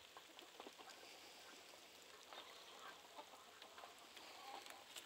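Near silence: faint outdoor ambience with a few distant clucks from free-range chickens now and then.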